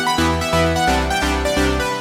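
Electronic background music with synthesizer and keyboard, a pulsing bass note about three times a second.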